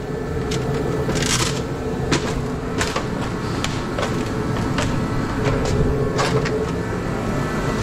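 Irregular sharp clicks and knocks of LED light panels being taken apart by hand for their aluminum, over a steady hum.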